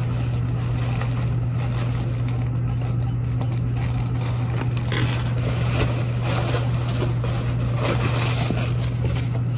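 Steady low hum, with faint scraping and rustling from items being handled now and then.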